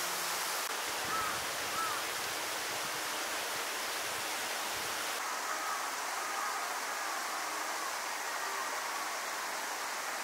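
Outdoor ambience: a steady, even rushing hiss, with a few faint short chirps about a second in and again in the second half.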